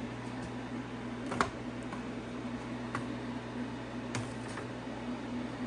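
Light clicks and taps of clear plastic dehydrator trays being handled and lifted off, with three sharper clicks, over a steady low hum.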